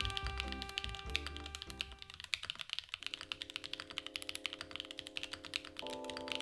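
Fast, continuous typing on a custom TKD Cycle 8 mechanical keyboard with linear switches and ABS keycaps, a steady stream of sharp key clacks. Background music with held chords plays underneath.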